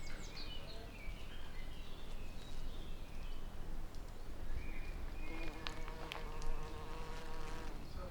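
A flying insect buzzing, with a few sharp clicks about six seconds in.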